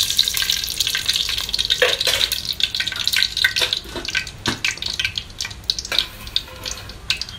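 Hot cooking fat poured into a steel pot with a hiss that fades over the first couple of seconds. It then sizzles, with many sharp crackles and pops as it heats.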